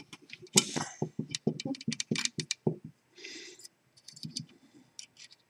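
Small metallic clicks, taps and light rattling from pick wires and a tension tool working in a six-lever safe lock, irregular and busiest in the first half, with a brief scrape about three seconds in.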